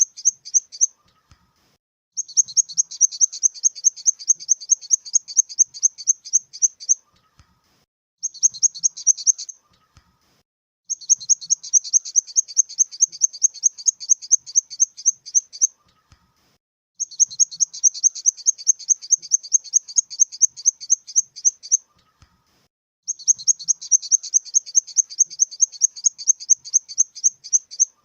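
Grasshopper stridulating: trains of high, rapid chirps, about six pulses a second, each train lasting a few seconds before a pause of about a second.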